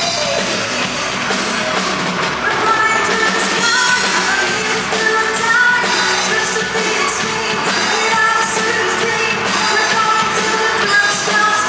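Music with a singing voice, loud and continuous.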